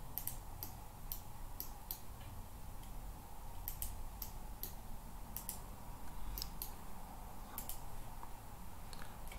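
Computer mouse clicking: a dozen or so short, sharp clicks, many in quick pairs, spaced irregularly through the seconds.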